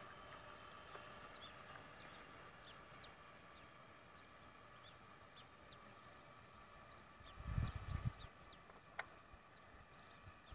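Faint birds chirping: many short, falling chirps scattered throughout, over a faint steady hum. About three quarters of the way in there is a brief low rumble on the microphone.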